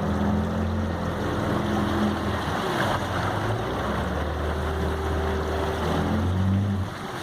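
Boat motor running steadily under way, with wind and water noise; near the end the engine's hum drops away and the sound gets quieter.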